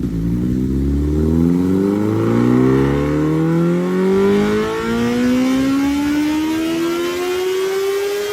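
Kawasaki Ninja H2R's supercharged inline-four engine accelerating hard, its pitch climbing steadily, with a brief break in the note about halfway through.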